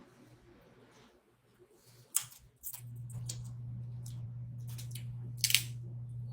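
Small crab shells cracking and snapping in the hands and mouth, a few sharp clicks and cracks, loudest about two seconds in and again near the end. A steady low hum starts about halfway through.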